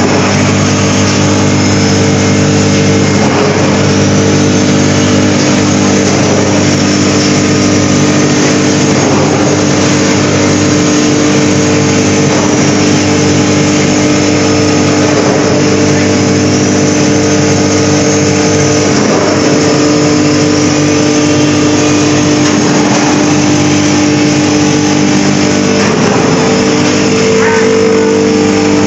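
Rotary drum dryer running: a steady, loud mechanical hum holding several constant tones without change.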